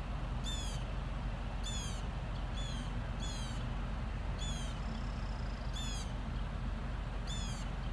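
A bird calling repeatedly: short, high calls that sweep downward in pitch, about one a second, over a steady low background rumble.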